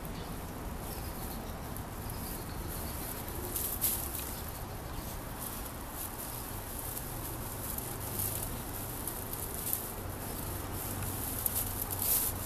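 Tinsel garland rustling and crinkling in short scratchy bursts as the costumed cat moves, over a steady low background rumble.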